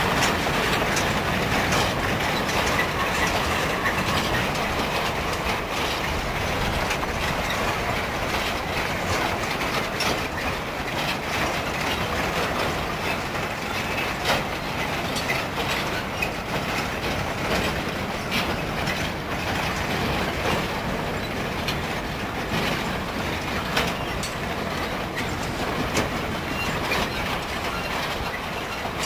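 Rake of empty narrow-gauge steel clay wagons rolling along the track with a small steam locomotive, a steady rumble with many clanks and clicks from the wheels on the rails. The loco has uncoupled and the wagons are running on by themselves in a fly shunt.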